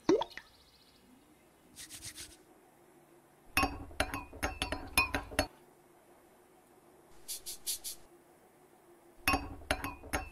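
A small spoon or stirrer clinking against a drinking glass as liquid is stirred, in two runs of quick, ringing clinks. Between them come two short, faint high-pitched hissing bursts.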